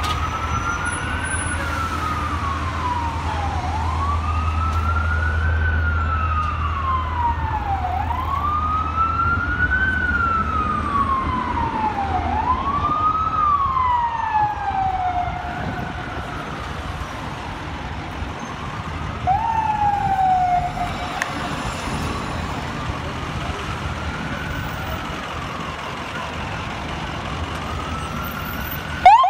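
FDNY ambulance's electronic siren on wail, rising quickly and falling slowly about every four seconds over steady city traffic. It weakens and stops about twenty seconds in, and a quicker rising tone starts at the very end. Under the first half there is a low engine rumble.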